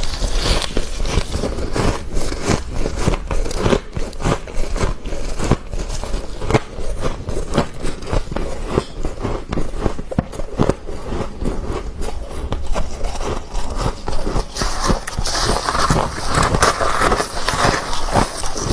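Soft, crispy freezer frost being bitten and chewed close to the microphone: a dense, continuous run of crisp crunches and crackles.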